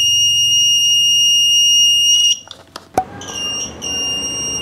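A dial torque wrench's electronic alarm buzzer gives a steady high-pitched beep, the signal that the set torque has been reached on the bolt. The beep stops a little over two seconds in, a sharp click follows about three seconds in, and then the beep starts again.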